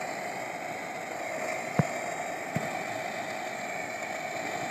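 Steady rushing of river water, with two short knocks a little under a second apart about two seconds in.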